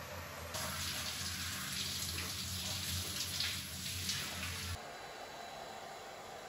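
Handheld shower spraying water, splashing steadily onto hair and body as hair is rinsed. About four and a half seconds in it cuts off and gives way to a quieter, steady hair dryer blowing.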